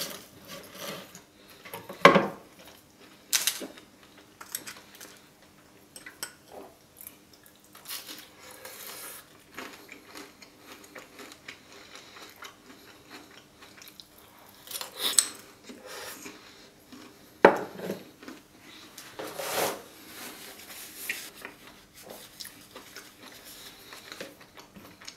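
Metal knife and fork clinking and scraping on a wooden cutting board, with a few sharp clinks spread through, between quieter eating sounds.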